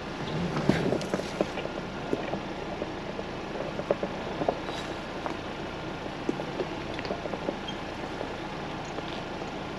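A 4x4 driving slowly on an off-road trail: steady engine and road noise with frequent small knocks and rattles.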